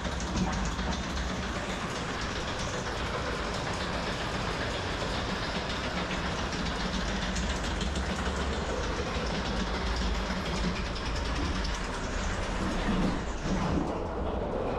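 Termite-themed amusement ride train rolling along its track: a steady rumble and clatter of the wheels on the rails.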